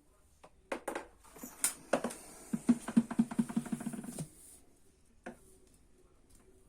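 Handling clicks and knocks, then a fast, regular rattling of about seven taps a second that lasts under two seconds, followed by a single click.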